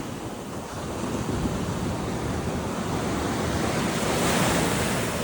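Surf washing onto a beach, with wind buffeting the microphone; the wash swells to its loudest about four seconds in.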